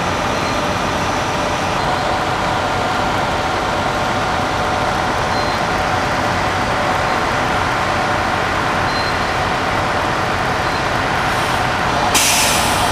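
Tour coach's diesel engine running steadily. A brief air-brake hiss comes about twelve seconds in.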